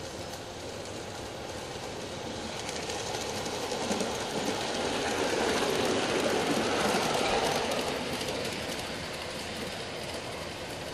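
Garden-railway model freight train behind a C-19 locomotive running past on the track: a rapid clicking of wheels on rail that grows louder as the cars pass close by, loudest about five to seven seconds in, then fades away.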